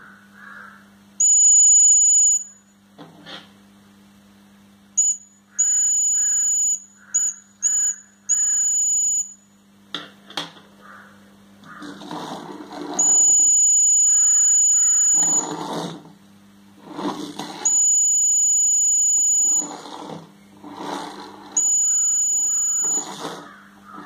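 Piezo buzzer of a homemade laser tripwire alarm beeping a high steady tone in irregular bursts, from a fraction of a second to about two seconds long, each time the beam to the LDR sensor is broken. Between the beeps come short bursts of rattling over a low steady hum, from a walking wind-up toy's clockwork.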